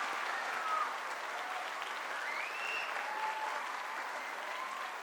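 Audience applauding after a dance performance, with a few high whoops rising above the clapping; the applause slowly dies down.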